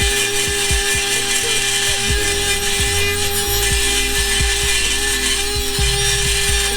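Dremel 4000 rotary tool running at a steady high whine, grinding against the metal of a cracked exhaust pipe. The ends are being ground down so they no longer tap together and rattle.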